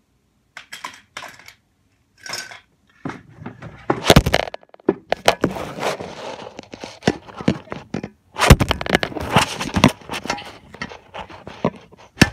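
Handling noise from a phone camera being picked up and moved close to its microphone: knocks, bumps and crackling rubbing. The loudest bumps come about four seconds in and again from about eight and a half to ten seconds in.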